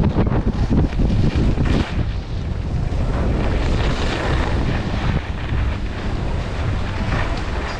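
Wind buffeting the microphone of a skier moving downhill, over the hiss and scrape of ski edges carving on packed snow. The rush eases a little near the end.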